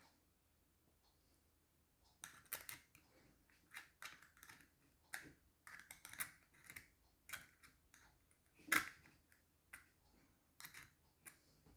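Small clicks, taps and short scrapes from hands working a 21-pin SCART plug while straightening its bent pins. They come irregularly after a quiet first two seconds, with the loudest click about nine seconds in.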